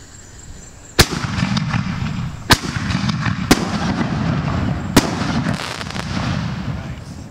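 Dynomite Fireworks Death Shells, large canister shells, breaking overhead: four sharp booms in about four seconds over continuous crackling and rumbling, which fades near the end.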